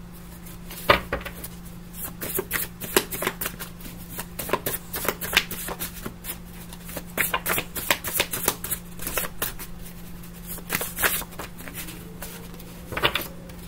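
A deck of tarot cards being shuffled by hand: a long run of quick, irregular card snaps and slides.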